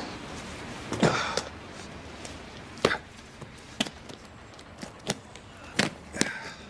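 A series of separate knocks and thuds, about seven spread unevenly over several seconds, the first about a second in the loudest: boxes and objects being set down in the boot of a station wagon.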